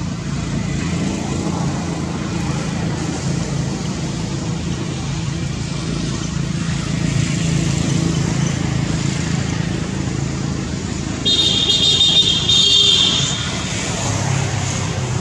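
Steady low rumble of motor traffic. About eleven seconds in, a shrill high-pitched sound lasts about two seconds.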